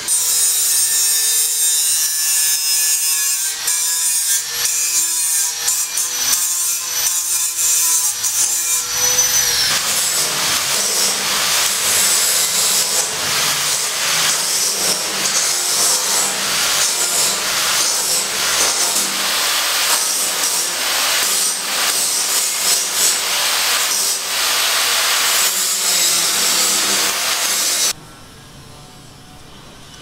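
Construction tool noise: for the first several seconds a tool runs with a steady whine under a bright hiss, then a long stretch of rasping, scraping strokes that stops suddenly near the end, leaving a much quieter background.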